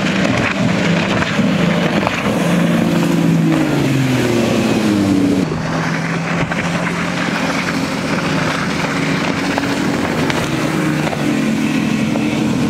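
Outboard engines of Ribeye 811 rigid inflatable boats running at high speed, over the rush of water and wind. The engine note slides down in pitch a few seconds in, breaks off abruptly, then runs on as a steadier drone.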